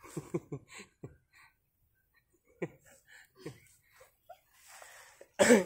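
Short bursts of laughter and giggling, several in quick succession about half a second in, a few scattered breathy chuckles after, and a louder laugh near the end.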